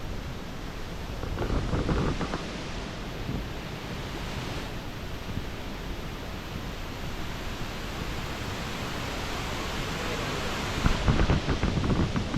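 Steady rushing of a high waterfall in heavy flow after rain. Gusts of wind buffet the microphone about two seconds in and again near the end.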